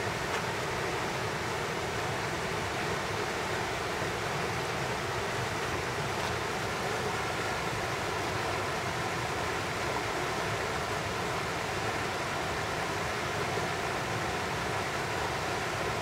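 Steady rush of water pouring over a low concrete weir.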